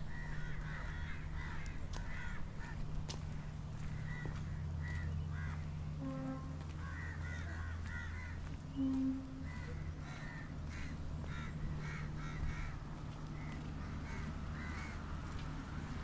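Crows cawing, short calls repeated throughout over a steady low hum. A brief low tone sounds about nine seconds in.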